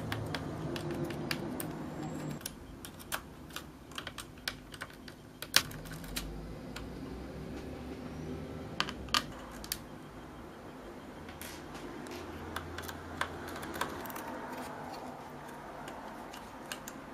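Scattered small clicks and taps of a screwdriver turning out screws and of hands handling the metal and plastic parts inside a video projector, with one sharper click about five and a half seconds in.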